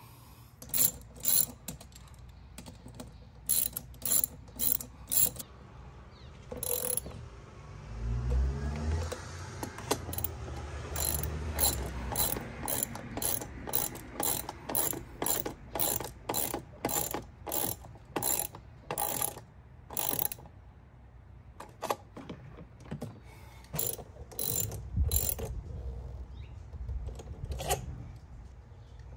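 Hand ratchet clicking in runs of back-and-forth strokes as it tightens a hose clamp on an engine intake tube, about two clicks a second for long stretches.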